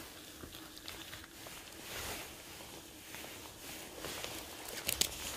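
Footsteps and rustling while walking and foraging, with scattered light clicks and one sharper click about five seconds in.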